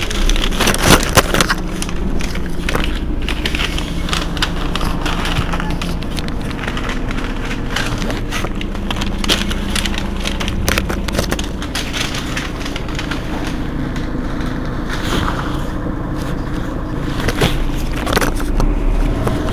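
Engine of a Mercedes-Benz Citaro G C2 articulated city bus idling steadily while the bus stands at a stop, with many sharp clicks and crackles over it.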